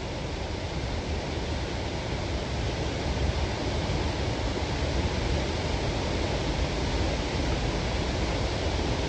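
Steady rushing of a nearby waterfall: an even, unbroken wash of water noise.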